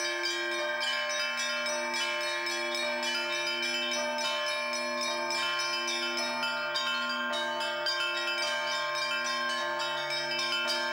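Orthodox cathedral bells being rung together in a continuous peal. Small high bells are struck rapidly over lower bells that take turns, each ringing on for about a second.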